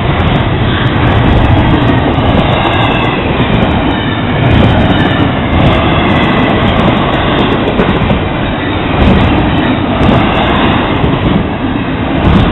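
Double-stack intermodal freight cars of a Florida East Coast Railway train rolling past at speed: a loud, steady rumble and rattle of steel wheels on the rails.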